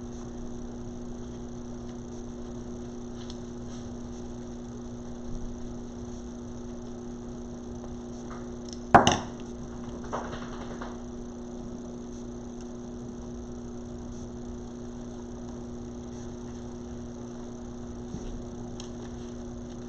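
Steady electrical mains hum, with faint handling sounds of craft work and one sharp knock about nine seconds in.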